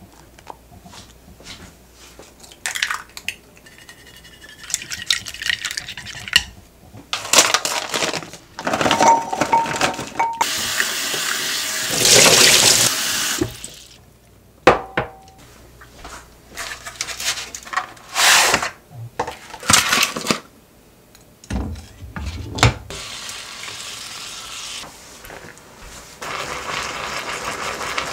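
Kitchen work sounds: clicks and knocks of a plastic lid snapped onto a small food container, then a sink tap running water into a glass bowl, loudest about twelve seconds in. Near the end a steady sizzle starts as meat begins to fry in a pan.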